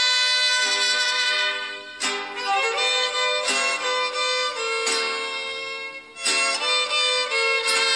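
Instrumental background music carrying a melody, with a new note or chord about every second or so.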